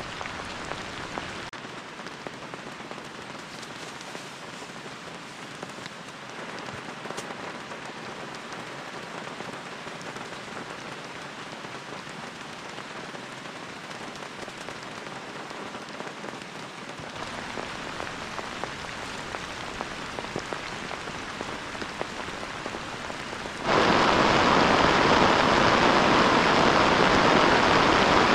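Rain falling steadily, a dense even patter, growing suddenly much louder near the end.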